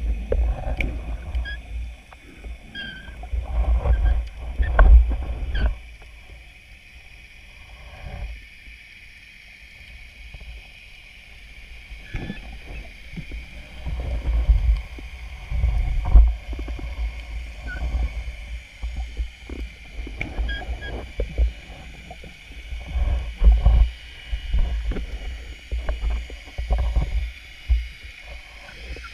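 Muffled underwater water noise heard through a camera's underwater housing: a low rumble that swells and fades in several long surges, with scattered faint clicks.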